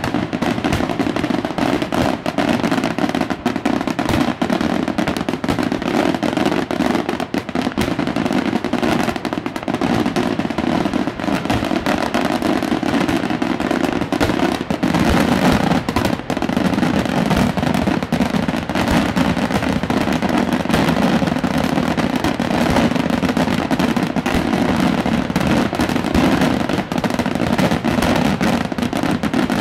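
Daytime aerial fireworks bursting overhead: a continuous, dense barrage of rapid bangs and crackling that never lets up.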